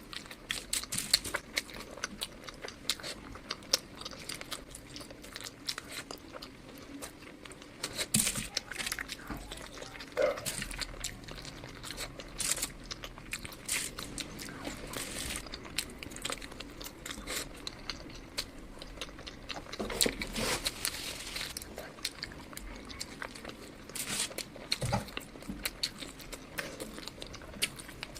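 Close-miked chewing and biting of food: irregular wet mouth clicks and crunches, with a few louder bites.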